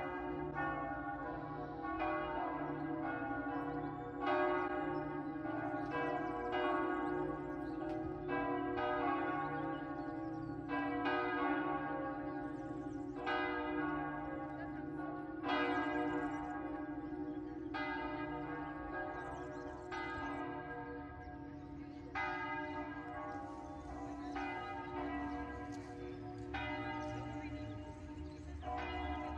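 Church bells ringing, a fresh strike about once a second, each ringing on into the next over a steady hum.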